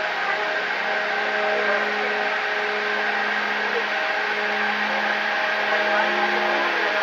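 The large forward deck elevator of the Izumo-class helicopter destroyer JS Kaga lowering its platform to the hangar, its machinery giving a steady hum with several steady tones over a constant noisy wash.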